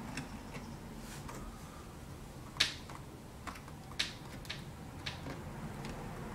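Irregular sharp clicks as an iPhone 7's display is pressed down into its frame by hand, seating it on new adhesive; the loudest click comes about two and a half seconds in, another at four seconds.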